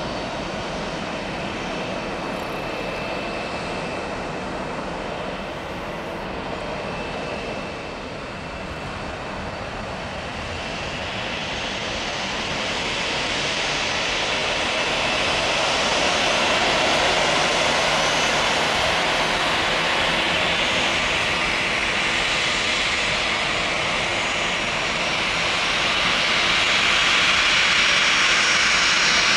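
Jet engines of a Boeing 737 airliner running at taxi power as it taxis past: a steady whine and rush that grows louder through the second half.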